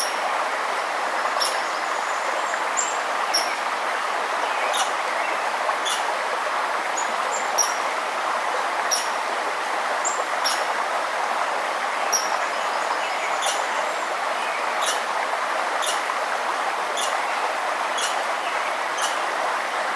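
A forest stream running steadily, with a bird giving short high chirps about once a second over the water.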